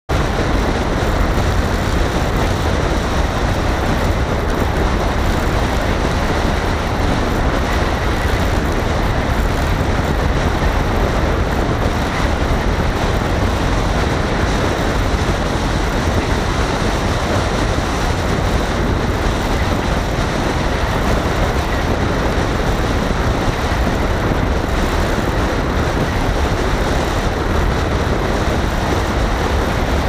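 A car driving over a cobbled and gravel mountain road: a steady, loud rumble of engine and tyres, heaviest in the deep low end.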